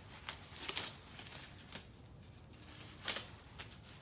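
Handling noise as the blower's fuel tank and filter parts are moved by hand: a scatter of short rustles and plastic clicks, with two louder ones about a second in and about three seconds in.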